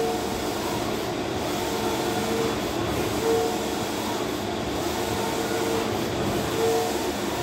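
Large-format flex banner printer running, its print-head carriage shuttling back and forth across the banner. Steady mechanical running noise with a short motor whine that comes and goes every second or two as the carriage travels.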